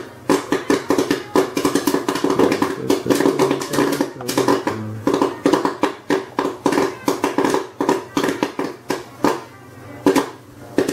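Popcorn kernels popping in an electric popcorn popper, a rapid, irregular run of sharp pops, over background guitar music.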